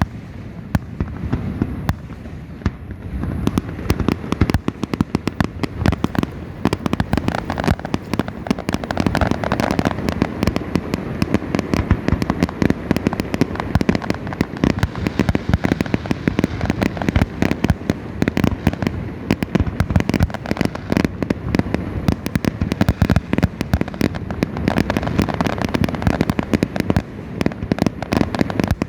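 Fireworks going off in a dense, continuous barrage of bangs and crackles, with a rumble underneath.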